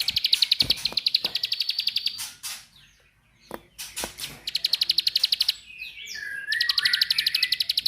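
A small bird's rapid 'klik-klik' call: a dry, high clicking trill of about ten clicks a second. It comes in three runs, the first lasting about two seconds, then after a pause two shorter runs, with a few quick sweeping chirps just before the last.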